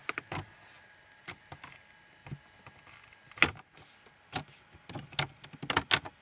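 Laptop LCD screen frame being pried loose by hand: scattered sharp clicks and snaps, with a strong one about three and a half seconds in and a quick run of them near the end.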